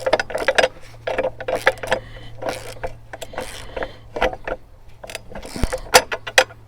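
Hand ratchet clicking in short irregular runs as the mounting nuts of a bolt-on chainsaw carrier are tightened down.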